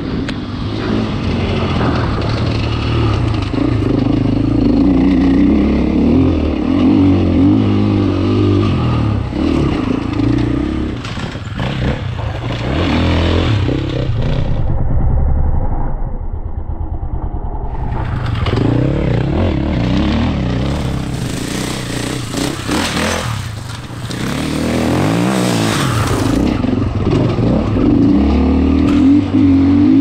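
Husqvarna FE 450 enduro motorcycle's single-cylinder four-stroke engine being ridden hard off-road, its pitch rising and falling again and again as the throttle opens and closes through the gears. The tone changes abruptly a few times between takes.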